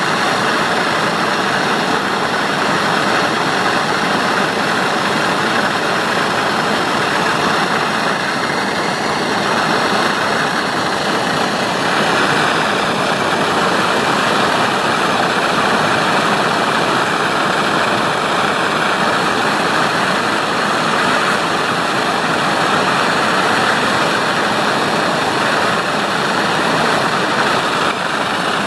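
Gas torch flame burning steadily while silver soldering brass: a constant rushing noise with a faint high whistle.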